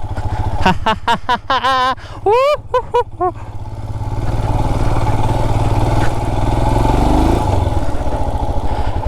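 Royal Enfield Himalayan's single-cylinder engine running, then pulling away with revs slowly rising from about four seconds in. A voice calls out briefly in the first few seconds.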